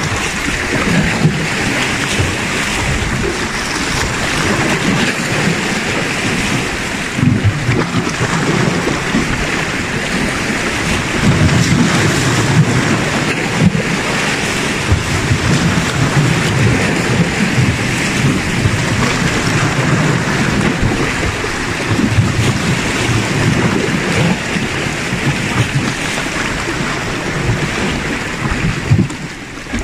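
Sea waves washing against shoreline rocks, with wind buffeting the microphone: a loud continuous rush broken by irregular low rumbling gusts.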